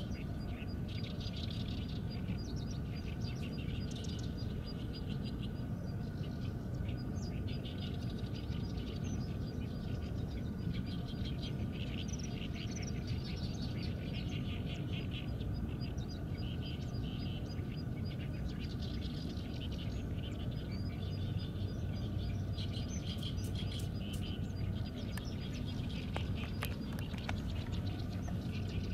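Small birds chirping and singing in quick, busy runs that come and go throughout, over a steady low background rumble.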